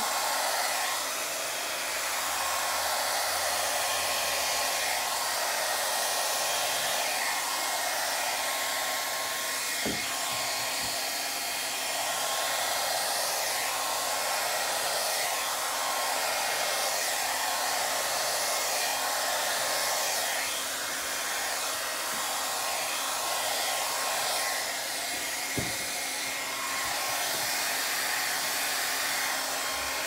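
Handheld hair dryer running steadily on its cool setting, blowing air over wet acrylic pour paint on a canvas. Two faint clicks come through, one about ten seconds in and one near the end.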